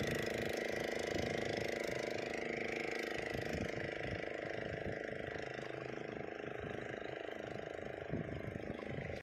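An engine running steadily: a drone made of several fixed tones that grows slightly quieter as it goes on.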